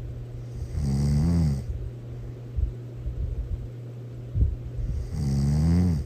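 A person snoring loudly: two long, pitched snores about four seconds apart, each rising and falling in pitch, with soft low puffs between them over a steady low hum.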